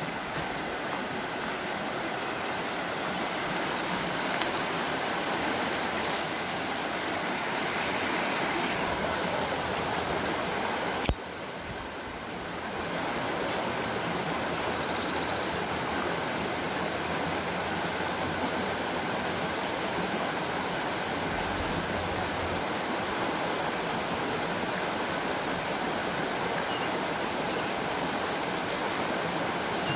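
Creek water flowing steadily, with one sharp click about eleven seconds in.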